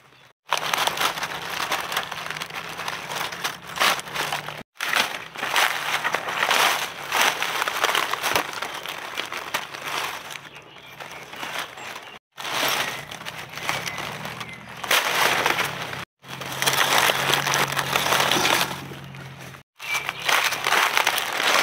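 Dry leaf litter crackling and crunching as a knife and gloved hands dig through it to lift mushrooms out, breaking off abruptly four times.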